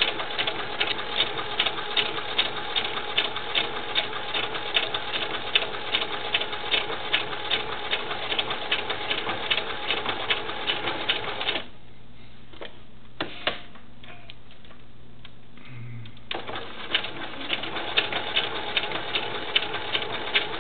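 Sewing machine running a zigzag stitch in reverse, a fast, even rhythm of needle strokes. It stops for about four seconds midway, with a couple of single clicks, then starts stitching again.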